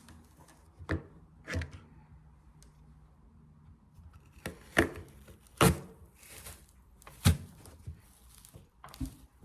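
A series of sharp knocks and thuds at irregular intervals, about eight in all, the loudest ones in the second half, like hard objects being set down or struck.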